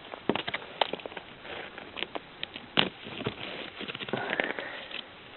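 Footsteps crunching through a crust of freezing-rain ice on top of snow: irregular sharp cracks and crackles, the loudest a little under halfway through.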